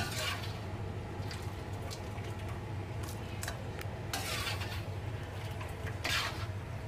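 Steady low motor hum, with several brief soft rustling swishes, the loudest near the end.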